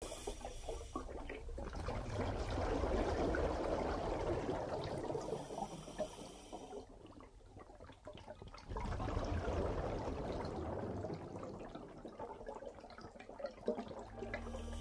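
Scuba diver's exhaled bubbles gurgling and crackling underwater, in two long swells with a quieter gap about halfway through.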